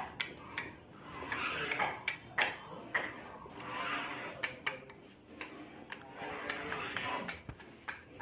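Light clicks and wooden taps as particle-board strips are handled and set against a laminated board, irregular and several to a second at times.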